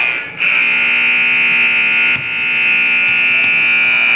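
Gym scoreboard buzzer sounding a loud, steady, high-pitched tone: a short blast, a brief gap, then one long blast, the horn signalling the end of a period of play.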